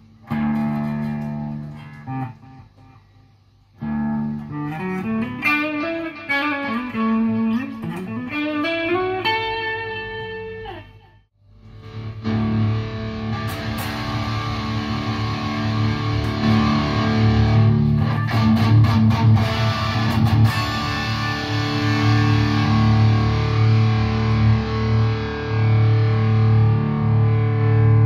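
Electric guitar played through a PRS MT15 tube amp head with 5881 power tubes: first a Mayones Hydra Elite playing single notes with bends and quick runs, then, after a brief break about eleven seconds in, a PRS SC 594 through the amp's lead channel with thick distorted playing.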